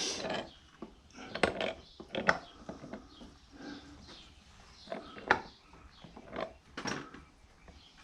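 Irregular clinks, knocks and scrapes of metal motorcycle engine parts and hand tools being handled during engine disassembly, a few sharper knocks standing out among softer handling sounds.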